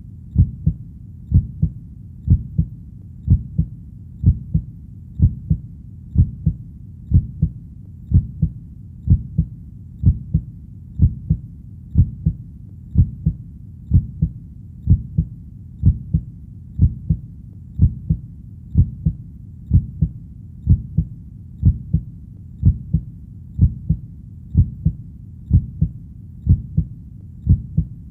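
Steady human heartbeat, each beat a low double thump (lub-dub), repeating evenly at about one beat a second.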